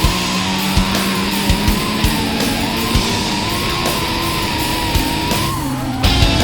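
Heavy metal music: distorted guitar and a wavering lead line over a steady drum beat, with a short break in the top end about five and a half seconds in.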